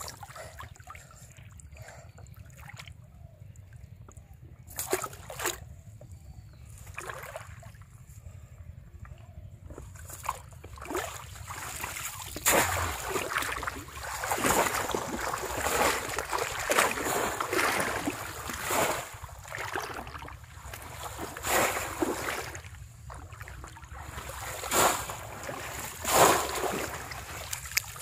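Shallow paddy-field water splashing and sloshing as a bamboo polo fish trap is worked through it, with water pouring off the trap's slats when it is lifted. Scattered separate splashes at first, then busier, louder splashing from about twelve seconds in.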